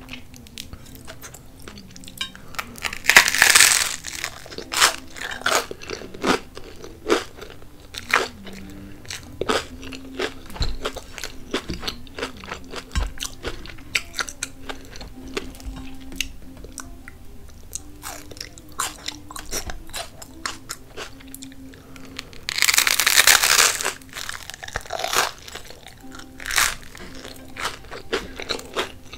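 Close-miked bites into crusty toasted bread topped with avocado and red onion: two loud crunching bites, about three seconds in and again about twenty-three seconds in, with crunchy chewing in between.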